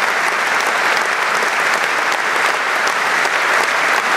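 Audience applauding steadily: dense clapping.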